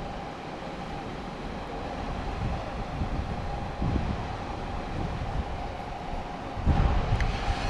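Wind buffeting the microphone in gusts over a steady rushing background with a faint steady hum; the buffeting grows louder near the end.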